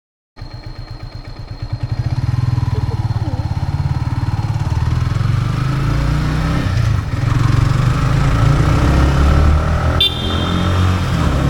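Yamaha XSR155's single-cylinder four-stroke engine through its stock exhaust, starting with slow, even putts that quicken and grow louder about two seconds in, then running steadily. A sharp click with a brief high tone comes about ten seconds in.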